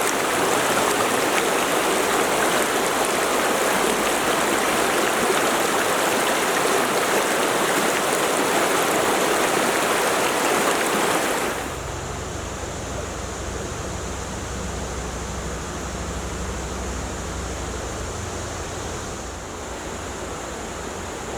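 Mountain stream rushing over rocks, loud and steady. About halfway through it cuts to a quieter stretch of flowing water with a low rumble underneath.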